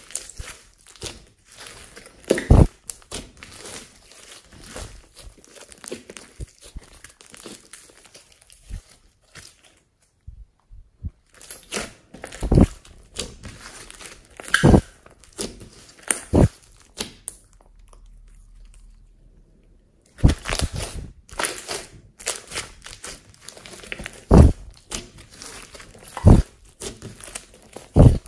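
Hands squeezing and kneading a large mass of glossy slime mixed with foam beads: wet squelching with crackling air-pocket pops and a louder squelch every few seconds. The sound stops twice, briefly.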